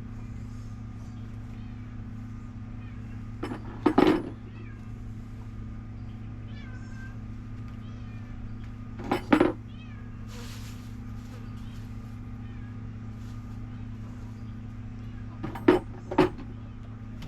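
A domestic cat meowing: one short, loud meow about four seconds in, another about nine seconds in, and two in quick succession near the end, over a steady low hum.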